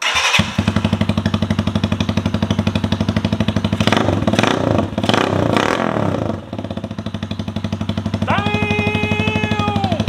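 RPS Condor 150cc Honda Grom-clone motorcycle starting up and idling through its newly fitted aftermarket exhaust with the muffler on, the throttle blipped a few times about four to six seconds in. Near the end a steady higher tone is held for about two seconds over the idle.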